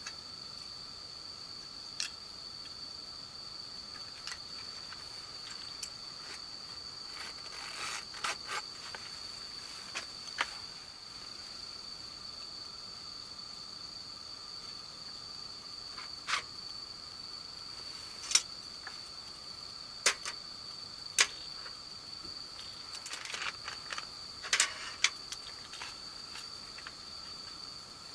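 Insects chirring in a steady, high, unbroken drone. Now and then come sharp clicks and light knocks, a few of them louder than the drone.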